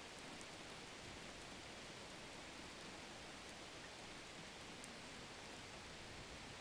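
Faint, steady hiss of background noise with no distinct events.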